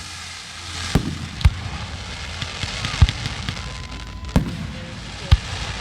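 Fireworks going off: about six sharp bangs at irregular intervals over a fainter steady crackle.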